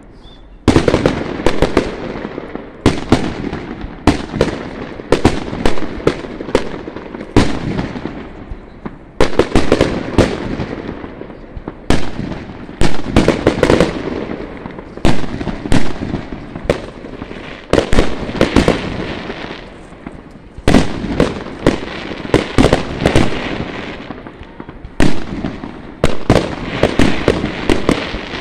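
Aerial fireworks display: shells bursting in a long run of loud bangs, many in quick clusters, each trailing off before the next.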